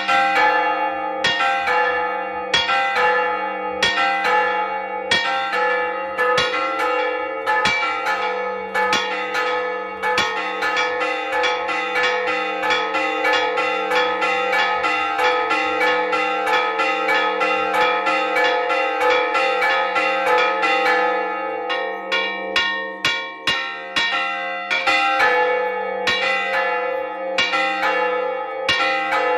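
Bronze church bells rung in a rapid, rhythmic repique, their clappers pulled by ropes. Several bells of different pitch sound over one another, and their ringing carries on between strikes. The strikes briefly thin out about three quarters of the way through, then pick up again.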